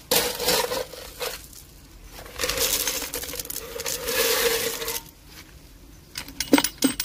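Crushed 20 mm stone aggregate rattling as it is poured from a metal scoop into a steel density cylinder: a short pour just after the start, then a longer one from about two and a half to five seconds, then a few sharp clinks of stones near the end.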